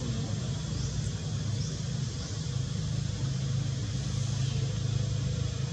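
A steady low rumble, with faint short high chirps repeating about once a second.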